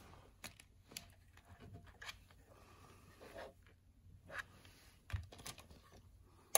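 Faint handling noise from a CNC motion controller box being picked up and turned over in the hands: scattered small clicks, taps and rustles, with a dull knock about five seconds in.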